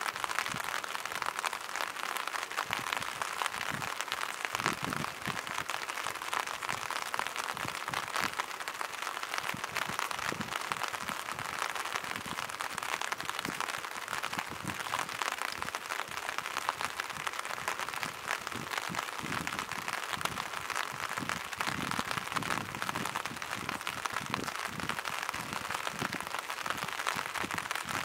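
Light rain falling on shallow water and rocks: a steady hiss made of many fine drop ticks.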